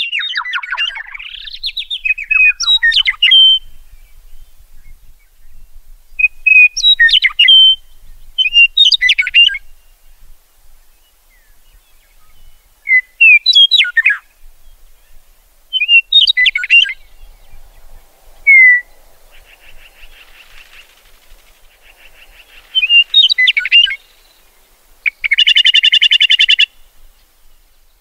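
Songbird singing: short, varied whistled phrases with quick sweeps, repeated every couple of seconds. A louder, buzzy call lasting about a second and a half comes near the end.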